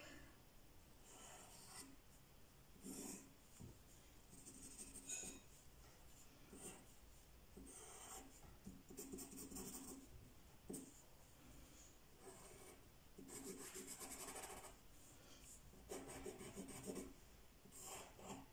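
Pencil hatching on paper: faint, scratchy strokes in short runs, with brief pauses between them.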